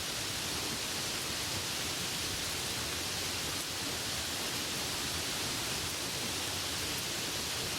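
Steady rainfall, an even hiss with no distinct drops, thunder or changes in level.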